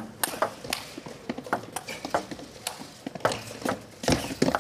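Table tennis rally: the ball clicking sharply off the bats and bouncing on the table at an uneven pace, with a heavier thump near the end.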